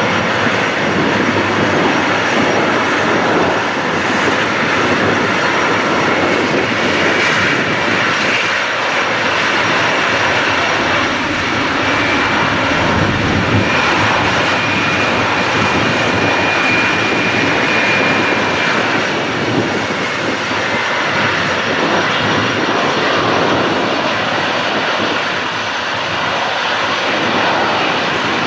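Boeing 777's GE90 turbofan engines running at taxi power as the jet rolls slowly past, a steady jet rush with a faint high whine that holds for several seconds in the middle.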